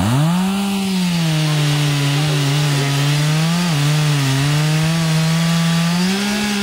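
Chainsaw revving up and cutting wood, its engine held at a steady high pitch under load with a brief dip partway through, rising a little near the end.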